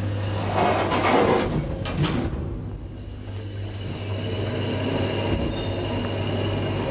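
Traction elevator getting under way and travelling up or down its shaft. A rush of noise with a clack about two seconds in is followed by a steady hum and a faint high whine from the drive as the car moves.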